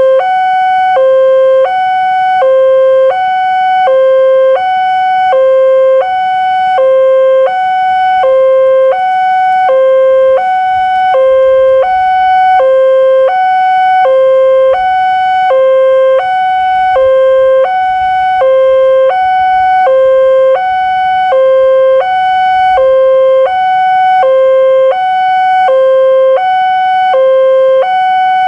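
Electronic level-crossing warning sounder on the signal mast ringing its two-note alarm, a low and a higher note alternating evenly, each held just under a second, warning that a train is approaching the closed crossing.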